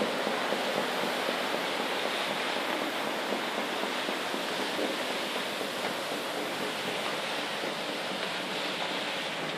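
Steady, even rush of sea water churning along the hull of a ship under way.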